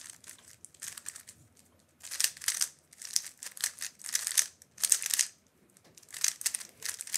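DaYan GuHong Pro 55 mm 3x3 speedcube being turned fast in a timed solve. The plastic layers clatter in quick runs of clicks, each about half a second to a second long, with brief pauses between them.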